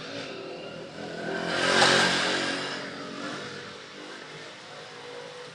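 A passing motor vehicle's engine, swelling to a peak about two seconds in and then fading away.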